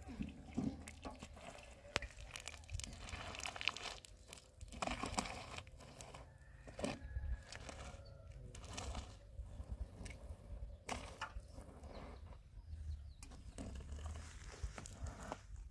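A long-handled brush scraping and swishing over a roof covered in plastic sheeting, in irregular strokes, with the sheeting crinkling.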